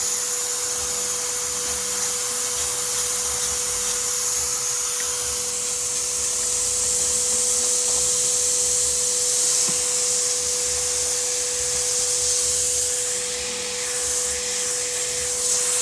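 Steady hiss of air rushing out through a leak, with a constant mid-pitched tone beneath it, the sign of the vacuum or exhaust leak being shown. A faint, very high whine joins in about five seconds in.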